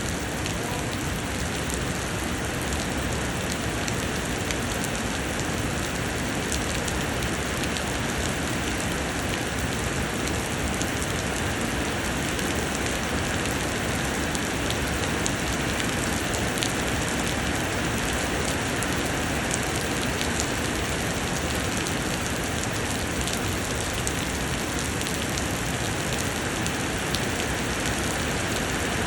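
Summer rain pouring steadily: an even hiss of rainfall with many fine, sharp drop ticks scattered through it.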